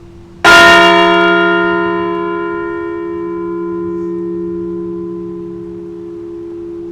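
A large memorial bell struck once about half a second in, then ringing out slowly with many overtones. The high ones fade first while the low hum lingers. It is a single toll for a veteran who has died.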